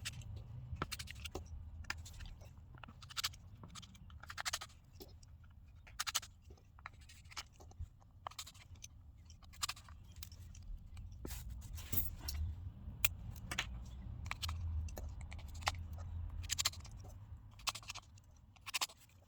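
Small hand tools working on a Samsung Galaxy A52s as it is taken apart: irregular scrapes and light clicks of metal and plastic against the phone's frame and back, over a low steady hum.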